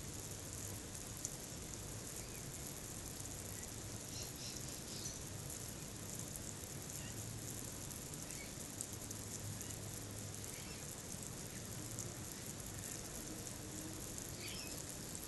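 Backyard outdoor ambience: a steady high-pitched hiss with a few brief bird chirps, about four seconds in and again near the end.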